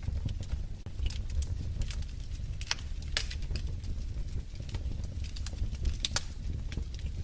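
Wood fire crackling in a fireplace: irregular sharp pops and snaps over a steady low rumble of the flames, with louder pops about three and six seconds in.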